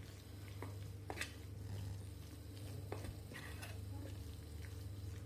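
Hand mixing a thick, coarsely ground toor dal batter in a steel bowl: faint soft scraping with a few light clicks against the bowl, over a steady low hum.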